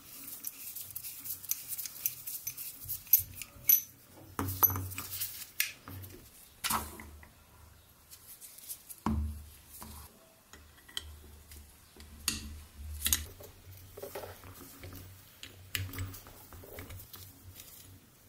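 Rusty steel parts of an old mini bench vise clinking, scraping and knocking irregularly as they are handled and taken apart, with pieces set down on a wooden tabletop.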